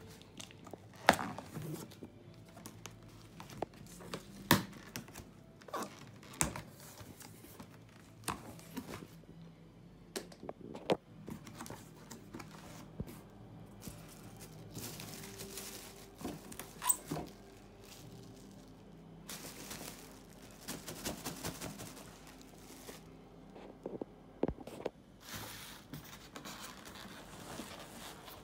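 Cardboard box and plastic packaging being handled while unboxing: scattered knocks and thuds of the cardboard, with several stretches of plastic wrap rustling and crinkling from about the middle on.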